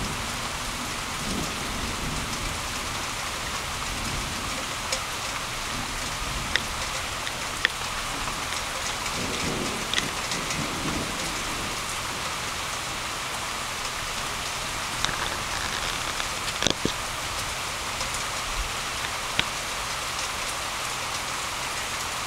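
Steady rain falling, an even hiss with scattered sharp ticks of drops landing close by. A low rumble comes in about nine to eleven seconds in.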